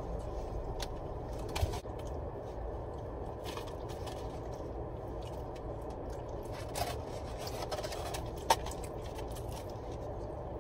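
A person chewing and eating fried chicken, with a few sharp clicks, over a steady low hum inside a car.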